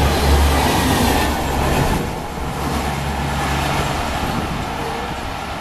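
LHB passenger coaches of an express train rushing past close by at speed, a loud steady clatter and rush of wheels on rail. About two seconds in it gives way to a quieter, steady low rumble.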